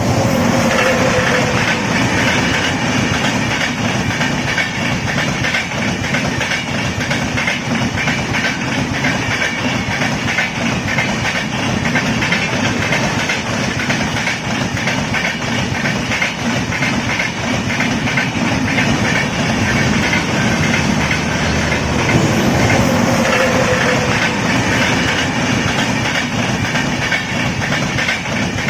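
Indian Railways train running on the rails: a steady rumble with the clickety-clack of wheels over rail joints. A faint falling tone comes twice, about half a second in and again around two-thirds of the way through.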